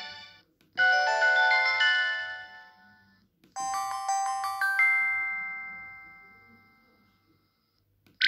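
A Samsung SGH-D410 mobile phone's speaker playing short polyphonic message alert tones one after another. The tail of one tone fades at the start. A quick run of chiming notes comes about a second in, then a bell-like chord about three and a half seconds in that rings out and fades over some three seconds.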